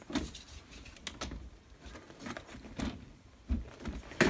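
Scattered light taps, knocks and rubs of a hand pressing and handling the edge of an LCD TV panel, with a sharper click near the end.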